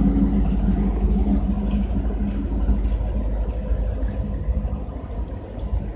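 Passing train: a steady low rumble with an engine hum that fades out about a second in, leaving a rougher rumble that eases off slightly toward the end.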